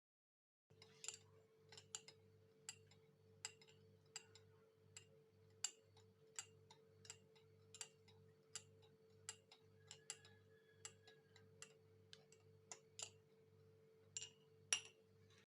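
Faint, sharp light clinks at an irregular rate of about one to two a second over a faint steady hum, starting about a second in, with the loudest clinks near the end.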